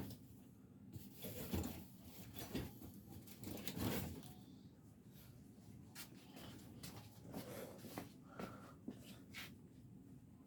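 Envirofan Silverline ceiling fan running on low speed: a faint steady motor hum, making a little bit of noise, with scattered faint clicks and rustles.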